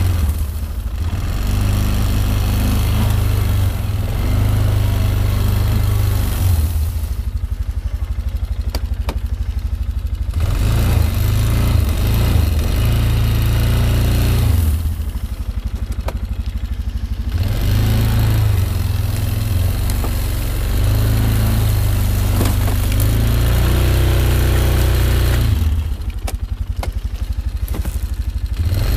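Polaris six-wheeler ATV engine running as it drives through tall grass, easing off the throttle three times, about seven, fifteen and twenty-six seconds in, then pulling again.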